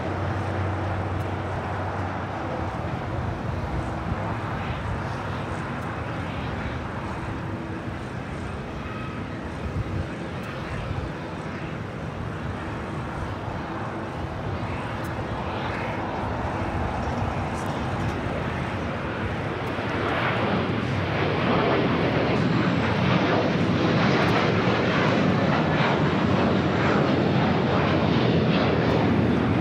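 Jet aircraft engines running on the airfield, a steady rumbling noise that swells louder and brighter about two-thirds of the way through.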